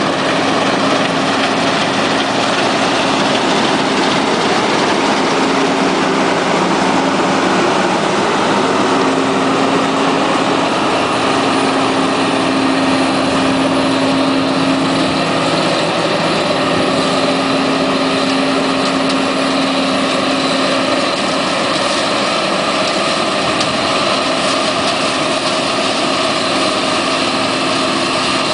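John Deere STS combine harvester running steadily while harvesting: a constant drone of engine and machinery with a steady hum.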